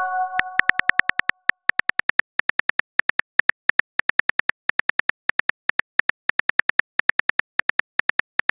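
Simulated phone keyboard typing clicks: a rapid, even run of short ticks, about five a second. Over the first second or so, the ringing tail of a message-sent chime fades out under them.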